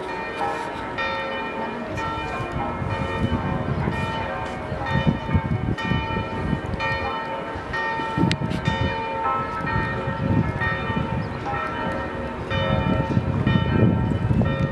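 Florence cathedral's bells ringing the noon peal: many overlapping bell tones struck again and again, with a low rumble underneath that grows louder near the end.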